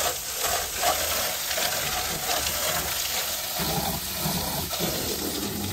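Jet of water from a hose hissing and splashing steadily against a car's muddy front wheel and tyre and into the puddle beneath, washing off mud.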